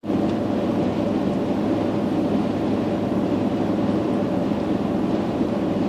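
Steady engine and road noise of a vehicle driving at an even speed, heard from on board, with a low rumble and a faint constant tone.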